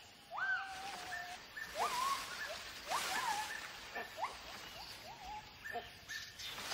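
White-handed (lar) gibbons calling: a run of short hoots, each rising sharply in pitch and some dropping back, about one to two a second, with leaves rustling briefly around the middle. These are the calls gibbons use to warn off intruders from their territory.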